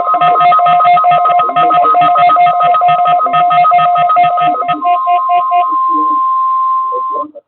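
NOAA Weather Radio warning alarm tone, a steady single tone of about 1050 Hz, sounded in a weekly test. For the first five seconds a rapid pulsing beep, about five pulses a second, rides on top of it. The pulsing then stops, and the steady tone runs on alone until it cuts off just before the end.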